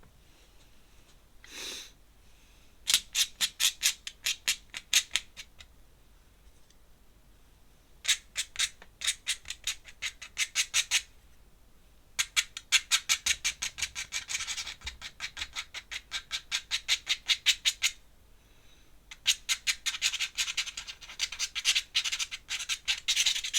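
Steel dip pen nib scratching across paper in quick, repeated strokes, several a second, coming in four runs with short pauses between.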